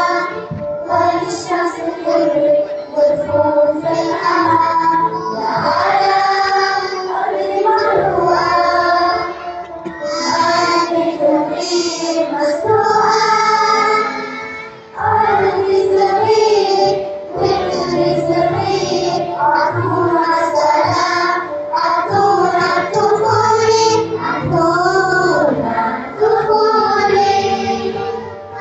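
Young children singing a song together with musical accompaniment, with a brief break about halfway through.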